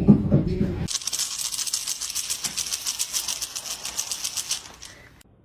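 A person's voice for about the first second, then a fast, even high-pitched rattle lasting about four seconds that fades out near the end.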